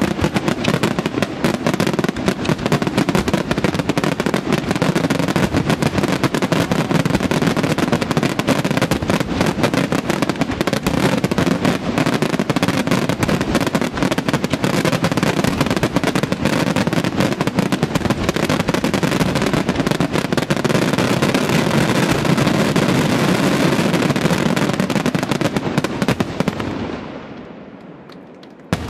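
Aerial firework shells fired in a dense, unbroken barrage, so many bursts that the bangs merge into one continuous din. It dies away about 27 seconds in, and one last single bang comes near the end.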